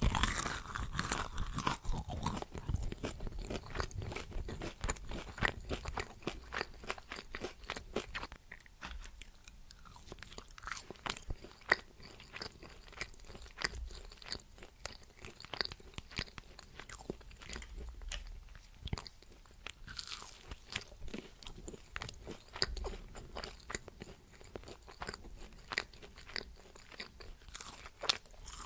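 A person chewing crunchy food close to the microphone, with many quick, irregular crunches and bites.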